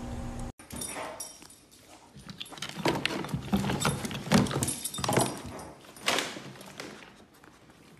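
A steady hum cuts off about half a second in. Then comes a run of knocks, clatter and rustling as a dog noses around a plastic bin and crate, busiest in the middle few seconds.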